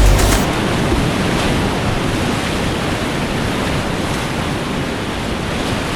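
Rushing whitewater of a river rapid, a steady, even rush of water.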